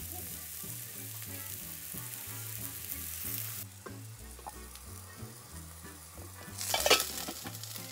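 Breadcrumbed pork cutlets sizzling in hot coconut oil in a stainless steel frying pan while they are turned over with a fork. The sizzle drops off about three and a half seconds in, and there is a louder burst of sizzle or handling noise near the end.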